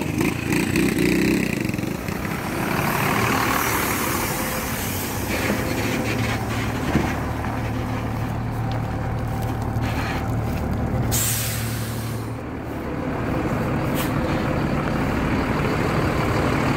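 Diesel intercity coach pulling up at the roadside and idling with a steady low hum. About eleven seconds in comes a short burst of pneumatic air hiss from the coach's air system.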